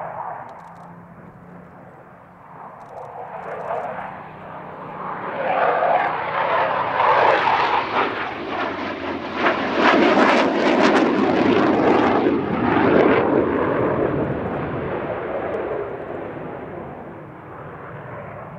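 Eurofighter Typhoon and Supermarine Spitfire passing together in close formation, the Typhoon's jet roar dominant with the Spitfire's Rolls-Royce Merlin beneath it. The roar swells to its loudest about ten seconds in, with a ragged crackle at the peak, then fades away.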